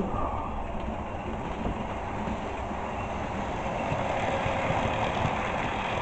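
Model railway train running past on the track: a steady rumble of the locomotive's motor and the wheels on the rails, growing a little louder as the locomotive passes close by about four seconds in.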